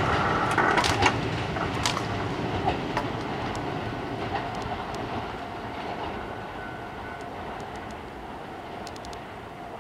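Ten-car Kintetsu limited express electric train (30000, 22000 and 22600 series coupled) running past and moving away. Its wheels clack over the rail joints in the first couple of seconds, then the rumble fades steadily.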